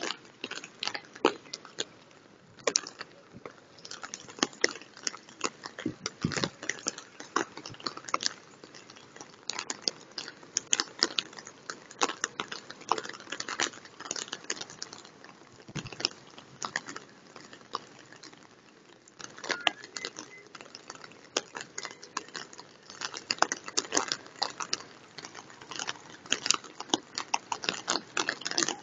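Heavy rain: dense, irregular pattering and crackling of raindrops striking close by, over a steady hiss of rain falling on floodwater.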